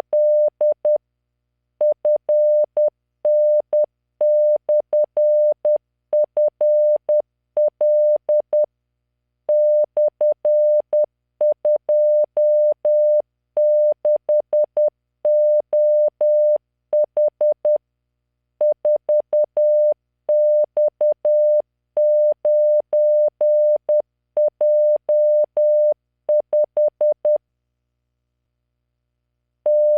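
Morse code practice tone generated by LearningMorse training software: a single 600 Hz beep keyed on and off in dots and dashes at 10 words per minute. It sends random five-character code groups with short pauses between groups and a longer pause near the end.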